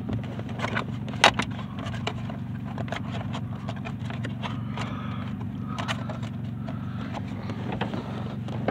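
Scattered sharp clicks and light scrapes of a Phillips screwdriver working at small screws in a vehicle's ignition housing, the loudest click about a second in, over a steady low hum.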